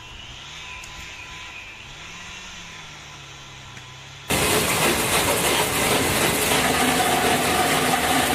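Heavy machinery: an engine running with its pitch rising and falling, then, about four seconds in, an abrupt cut to much louder, noisy machine sound.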